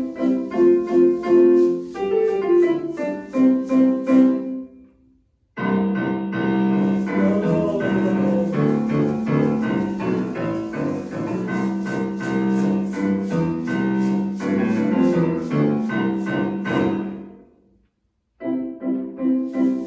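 Piano music in short separate excerpts for a high-middle-low pitch listening game. The first excerpt fades out about five seconds in, a second plays until it fades near seventeen seconds, and a third begins shortly after a brief silence.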